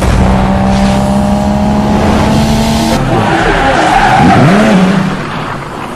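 Car engine held at high revs with tyres squealing, as in drifting or a burnout. It is loud throughout, its pitch rises and falls about four seconds in, and it fades toward the end.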